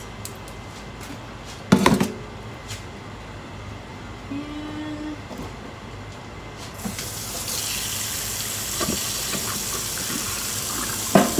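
Kitchen tap running water into a stainless steel sink, the flow getting louder and hissier about seven seconds in. A sharp knock comes about two seconds in.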